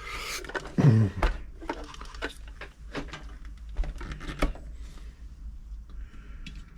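Scattered light clicks and knocks as a domestic sewing machine and its plastic case are handled on a workbench, with a short rustle at the start and another near the end.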